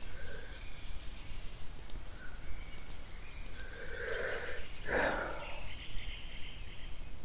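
Steady low background hum and hiss with a few faint, indistinct sounds, the clearest a short one about four to five seconds in.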